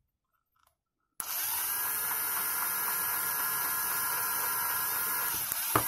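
Electric drill starting abruptly about a second in and running steadily for about four seconds as it bores a hole through a tablet's thin aluminium back, then stopping, with a sharp click near the end.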